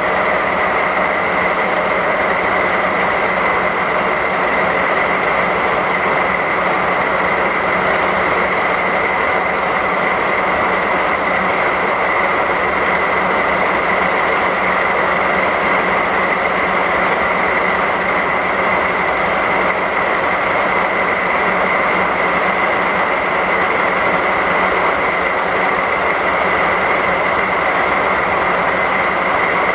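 JR Freight Class DD51 diesel-hydraulic locomotive's DML61Z V12 diesel engines idling steadily, with a constant high whine over the engine's run.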